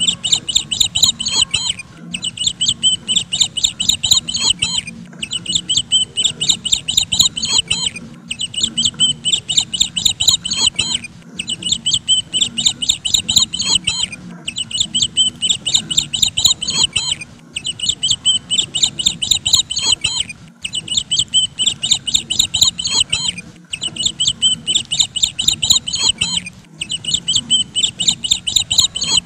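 Bird chirping in fast strings of high notes, each string lasting about two and a half seconds and repeating about every three seconds like a loop.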